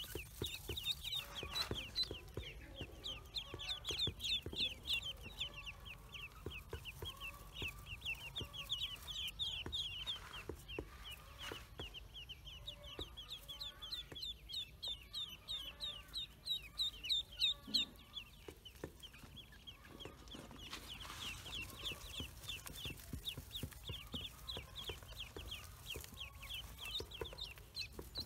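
A group of newly hatched ducklings peeping continuously: short, high, downward-sliding peeps, several a second, overlapping from many birds at once.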